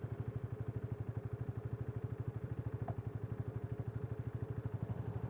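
KTM Duke 250's single-cylinder engine idling steadily at a standstill, an even pulse of about a dozen beats a second.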